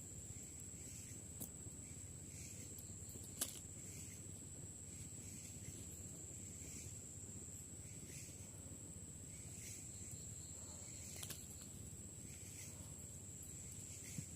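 Night forest insects: a steady high-pitched trill, with a soft chirp repeating about once a second. Two sharp clicks stand out, the louder about three and a half seconds in and another near eleven seconds.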